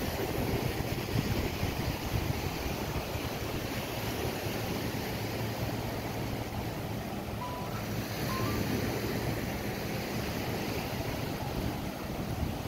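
Wind buffeting the microphone over small waves washing onto a sandy beach, with a faint steady low hum through the middle and a few faint short chirps about eight seconds in.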